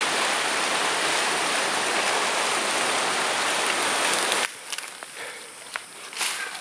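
Steady, loud rushing of water that cuts off suddenly about four and a half seconds in. After it come quieter rustling and scattered sharp crackles of twigs and leaf litter as a hiker moves through jungle undergrowth.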